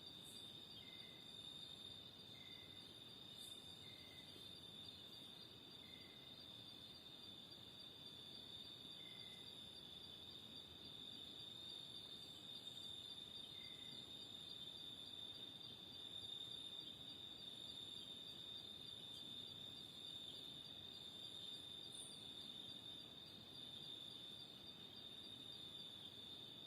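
Cicada in a mango tree giving a faint, continuous high-pitched buzz that holds steady. Soft short chirps repeat about every second and a half over it during the first half.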